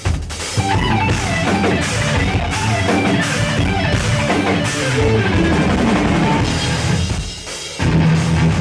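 Live heavy metal band: fast electric-guitar lead lines over drum kit and bass. Near the end the band breaks briefly, then comes back in with heavy accented hits.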